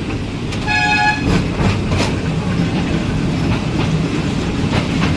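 Ride-on toy train running on its track with a steady rumble and clacking from the wheels and rail joints. A short horn toot sounds about a second in.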